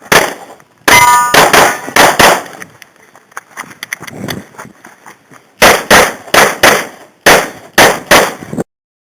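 Glock 22 .40 S&W pistol fired rapidly in two strings: about six shots in the first two and a half seconds and about seven more from five and a half seconds on, with fainter shots between. A brief ringing tone comes about a second in. The sound cuts off abruptly near the end.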